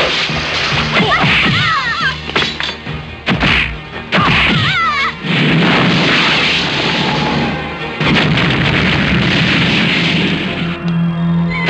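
Kung fu movie-style fight sound effects: a quick run of punch and kick impacts, thuds and crashes, with booming hits and music underneath.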